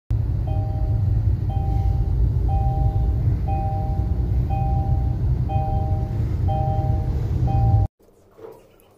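Inside the cabin of a moving Kia Seltos: a steady low road and engine rumble, with a dashboard warning chime, a short two-note tone, repeating about once a second. It cuts off suddenly near the end.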